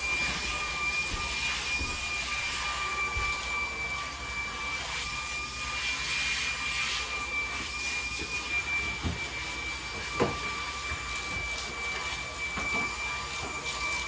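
Stick vacuum cleaner running steadily: a high, even whine over a rushing hiss of suction. A few short knocks come through, the sharpest about ten seconds in.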